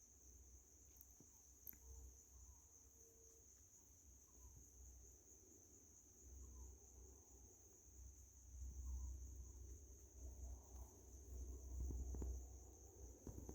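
Crickets trilling steadily in a high-pitched, faint chorus, under a low uneven rumble that grows stronger about two-thirds of the way in.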